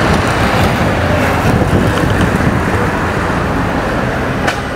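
Steady street traffic noise, with a single sharp click near the end.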